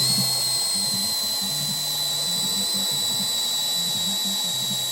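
Electric drill running steadily at high speed with a small bit, drilling out a stripped screw head; a constant high-pitched motor whine that sags very slightly in pitch as the bit bears down.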